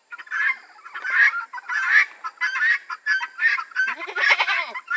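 Farm poultry calling noisily in a rapid string of harsh, honking calls, with a lower, longer call about four seconds in. These are hungry animals clamouring for their feed.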